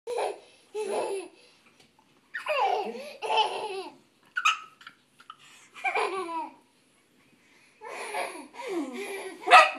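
A toddler laughing in repeated short bursts with gaps between them.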